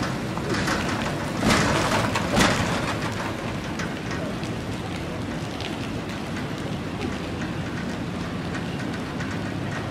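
The Big Chute marine railway's steel boat carriage rolling along its rails: a steady mechanical rumble and hiss, with two louder surges about one and a half and two and a half seconds in.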